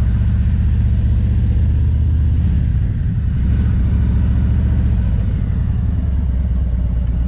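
Motorcycle engine running at low speed with a steady low rumble, its pitch shifting a little a couple of times as the throttle changes.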